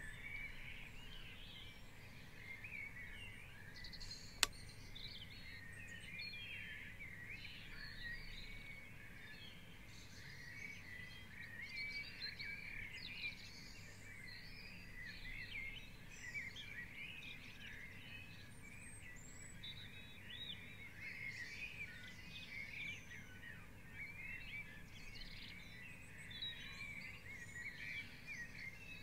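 Dawn chorus: many songbirds singing at once, a dense tangle of overlapping chirps, trills and warbles. One sharp click stands out about four seconds in.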